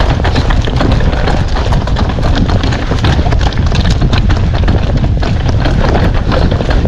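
Mountain bike clattering over a rough, rocky trail: a dense, irregular run of sharp knocks and rattles. A heavy rumble of wind on the microphone runs beneath it.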